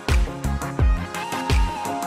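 Background music with a steady electronic beat: deep kick drums and crisp hi-hats under sustained synth notes.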